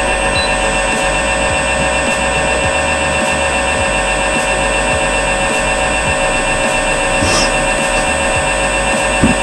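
Vacuum emulsifying mixer's homomixer motor running at speed with a steady multi-toned whine over a low rumble. A thump comes right at the end.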